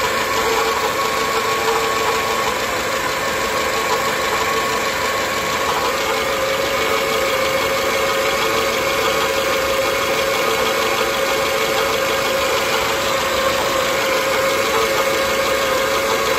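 Renault Symbol engine idling with a steady abnormal noise, a constant hum over a rough rattle. The mechanic traces it to the air-conditioning compressor, not the belt tensioner, which was replaced with the same problem remaining.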